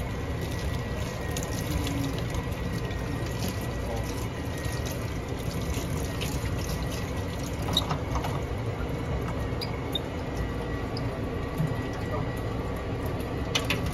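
Tap water running steadily while espresso grinder parts are washed, with a few light clicks and knocks.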